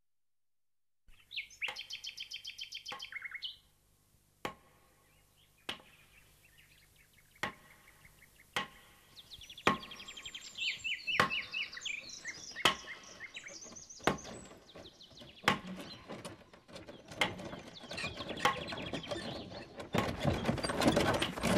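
Mallet blows, a sharp knock about every second and a half, with birds twittering in quick high trills. A wooden cart rolls in near the end, its noise building.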